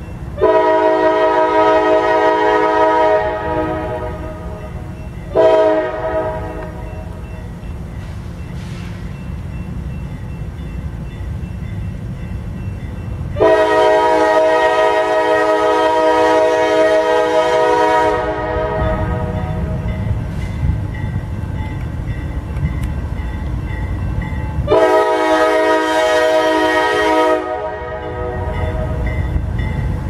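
Locomotive air horn sounding four blasts: a long one at the start, a short one about five seconds in, a long one from about thirteen to eighteen seconds, and another long one near the end. A low rumble of the passing train fills the gaps between blasts.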